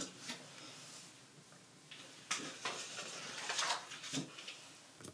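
A crying woman's quiet sniffles and shaky breaths: several short sniffs a second or so apart.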